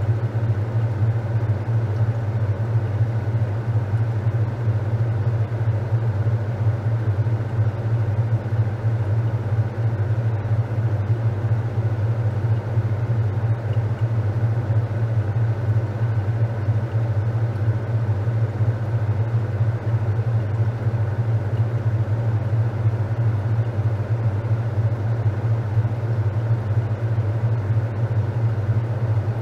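Top-loading washing machine running with a steady low hum and no change in level.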